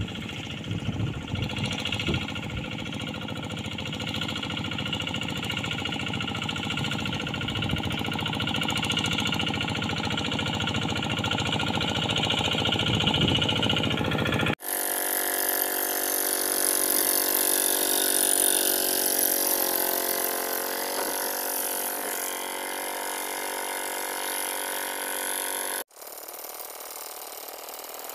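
Single-cylinder diesel engine of a two-wheel hand tractor on float-drum wheels running steadily under load while working a flooded rice paddy. The sound changes abruptly twice, about halfway through and near the end, where the recording is cut.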